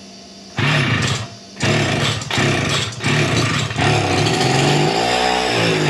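Small engine of a motorized bicycle sputtering: it cuts out twice in the first second and a half, then catches and keeps running, its speed wavering up and down. The engine is hard to start.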